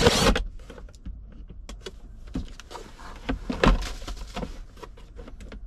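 Hard plastic clicking, knocking and scraping as a GM SUV's center console lid, its screws removed, is pulled apart into its top and bottom halves. A short scrape comes right at the start, and the knocks are busiest in the middle.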